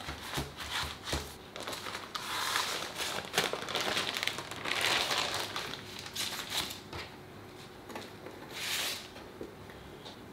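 Paper crinkling and rustling as a roll of puff pastry is unwrapped and unrolled from its baking paper, in irregular rustles with one last short rustle near the end as the sheet is handled into the tart tin.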